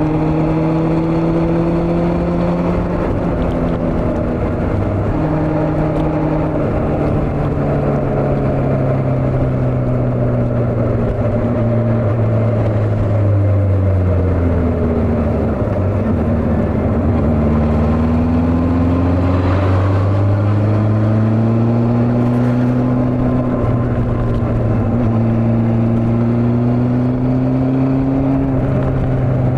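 Honda CB400 motorcycle engine under way, its pitch sinking slowly for about fifteen seconds as the bike eases off, then rising steadily again as it picks up speed.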